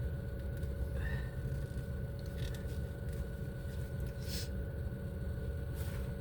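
Car interior noise: a steady low road rumble with a faint steady whine, broken by three brief faint noises.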